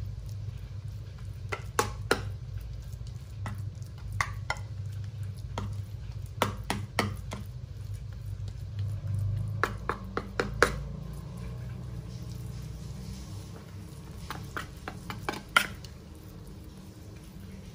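Kitchenware being handled: scattered light clinks and taps of utensils and dishes at an uneven pace, over a steady low hum.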